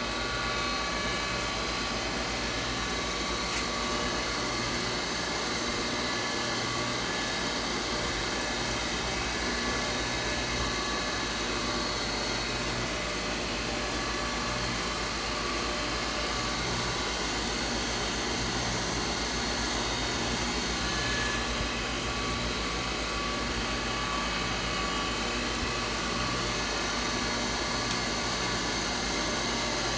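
Tool and cutter grinder running steadily: an even motor hum with a high whine that holds the same pitch throughout.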